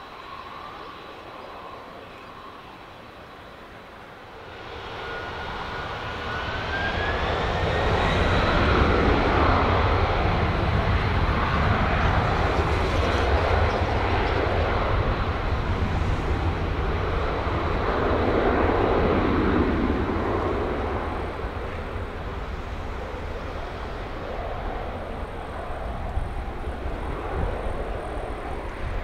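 Boeing 777-200ER's Rolls-Royce Trent jet engines spooling up for takeoff. A rising whine starts about four seconds in and grows into a loud, steady roar of takeoff thrust, which eases somewhat in the last third.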